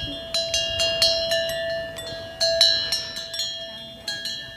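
Bells hanging from the necks of Bactrian camels clanking unevenly as the camels walk, two or three ringing strikes a second.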